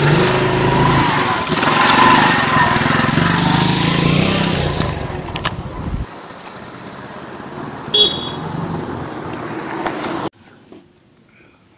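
A vehicle's engine running as it drives off, loud for about six seconds and then quieter. A short sharp click comes about eight seconds in, and the sound cuts off abruptly about ten seconds in.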